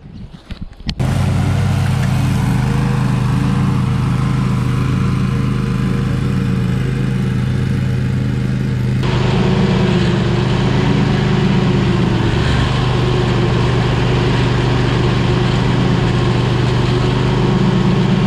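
Toro zero-turn ride-on mower running steadily at working speed while its deck blades cut grass. It starts abruptly about a second in and gets brighter and a little louder at about nine seconds.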